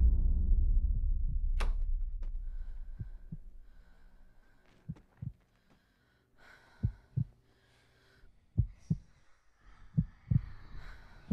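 Horror-film sound design: a deep low boom that fades away over about four seconds, then a heartbeat effect of paired low thumps that come closer together, about every two seconds at first and quicker by the end.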